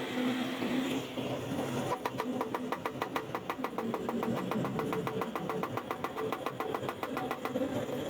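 A machine ticking rapidly and evenly, about seven or eight times a second, over a steady hum; the ticking starts about two seconds in.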